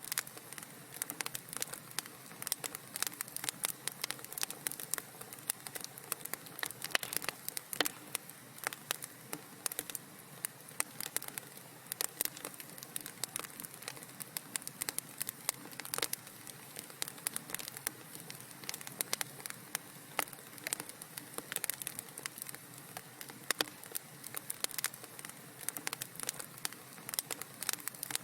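Wood fire in a fireplace crackling, with frequent sharp irregular pops over a soft steady hiss.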